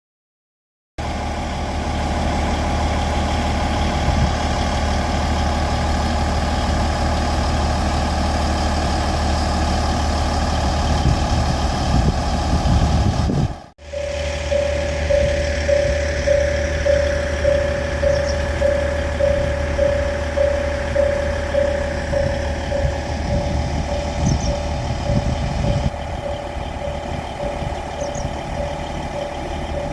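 A vehicle engine idles steadily. After a brief cut about halfway through, a Japanese level-crossing warning bell starts ringing in a fast, even repeat over the idling engine.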